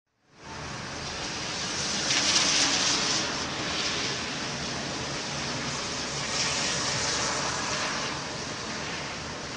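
Thunderstorm rain, a steady rushing hiss that fades in within the first half second and swells about two seconds in and again around six to seven seconds.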